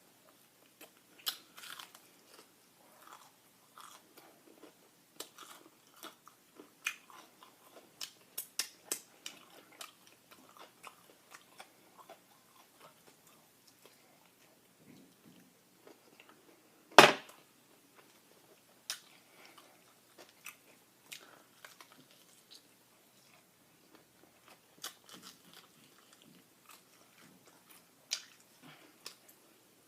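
Close-miked eating of crispy Popeyes fried chicken: biting and crunching into the breading, with chewing between bites. One much louder sharp knock about 17 seconds in.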